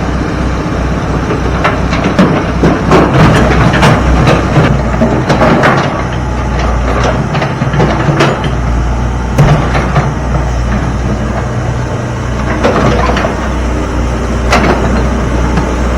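Rocks and dirt clattering and banging into a dump truck's steel bed as it is loaded, with a heavy diesel engine running steadily underneath.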